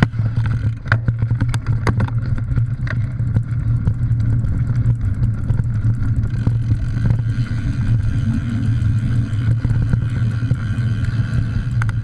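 Riding noise from a mountain bike's action camera on a rough dirt trail: a loud, steady wind and road rumble on the camera microphone, with many short clicks and rattles from the bike over the ground.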